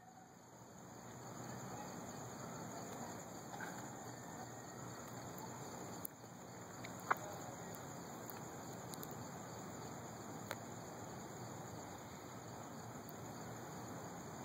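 Crickets chirring steadily in a high even band over a constant hiss, broken by a few sharp clicks, the loudest about seven seconds in.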